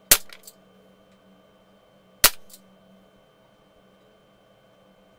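Walther CP88 Competition CO2-powered .177 pellet pistol fired twice, about two seconds apart: two sharp, fairly quiet cracks, each followed by fainter ticks.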